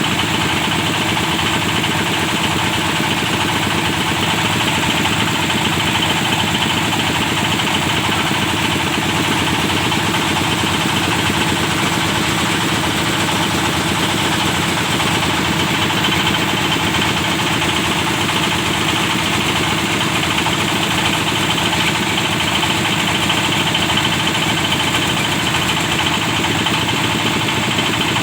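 Engine of a well-drilling rig running steadily at a constant speed.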